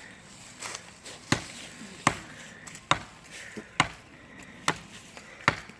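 Small Husky axe chopping into a small tree trunk: about six sharp strikes, roughly one every second, each one a hard thwack into wood.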